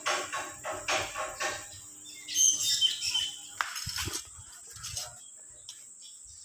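Bird calls repeated about three times a second, stopping about a second and a half in. About two and a half seconds in comes a short burst of higher chirps, followed by a few light knocks.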